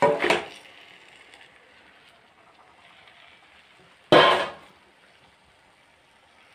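Marinated chicken pieces dropped into a hot kadai of masala: a burst of sizzling as they land, dying down to a steady low sizzle. About four seconds in there is one short, sharp clatter.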